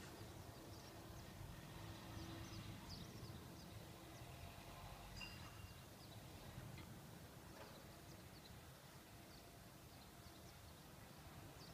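Faint low drone of a distant Leonardo AW139 helicopter high overhead, with scattered short high bird chirps.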